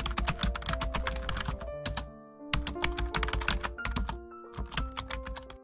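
Background music with steady sustained notes under a dense run of rapid sharp clicks over a low thud. The clicks pause for about half a second just after two seconds in, then resume until near the end.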